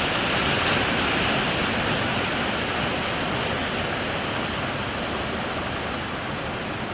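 Steady roar of breaking surf at a river mouth, easing slightly toward the end.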